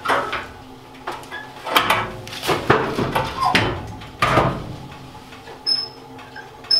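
A split log being loaded into a Pioneer Princess wood cookstove: a series of wooden knocks and metal clunks from the log and the stove's firebox door, then two short metallic clinks near the end.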